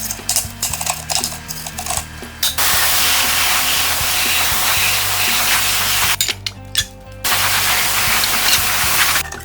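Compressed-air spray hissing in two long, steady bursts, the first about two and a half seconds in and the second after a short break, following light clicking and scraping, over background music.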